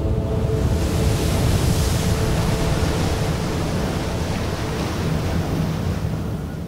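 Heavy storm surf breaking and churning against sea cliffs, with strong wind buffeting the microphone; a loud, continuous roar that eases off near the end.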